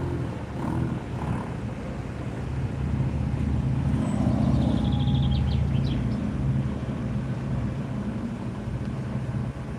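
Maserati GranTurismo's V8 engine passing at low speed close by, its low rumble building to its loudest about four to five seconds in and then easing off as the next car rolls up.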